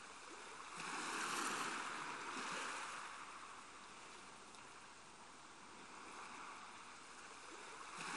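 Faint rushing of water, like the wash at a ship's bow, swelling about a second in and easing off by the middle.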